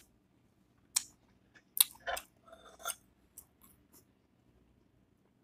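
Close-up eating sounds: a scattered series of short, sharp wet smacks and clicks from chewing and licking fingers, about seven or eight over a few seconds.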